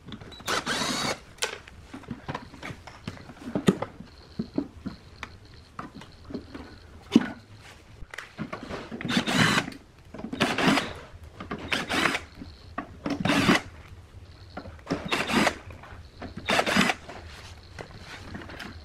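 Cordless drill-driver running in short bursts of about a second, backing screws out of a subwoofer amplifier's sheet-metal chassis. Small clicks and knocks of metal parts being handled come between the bursts.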